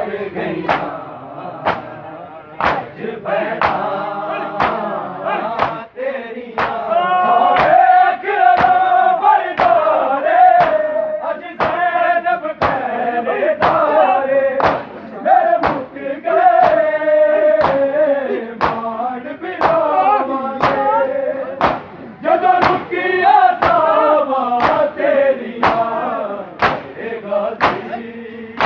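Men's voices chanting a mourning lament (noha) together, with rhythmic slaps of hands striking bare chests (matam), about one slap a second.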